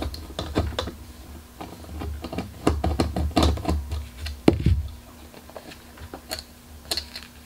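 Irregular clicks and scrapes of a Phillips screwdriver turning out a screw from a graphics card's cooler, with light knocks as the card and tool are handled on a tabletop. A louder knock comes about four and a half seconds in.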